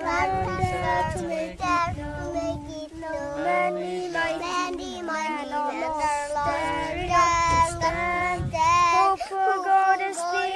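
Children singing a song together.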